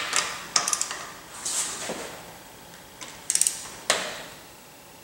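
Click-type torque wrench tightening ARP head-stud nuts on a Mitsubishi 4G63 cylinder head to 60 ft-lbs: short runs of quick ratchet ticks and separate sharp clicks, spaced out over a few seconds.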